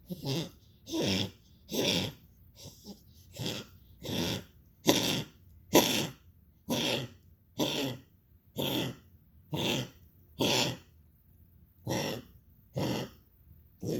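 An animal coughing over and over in a long fit, about one cough a second, with a short break shortly before the end.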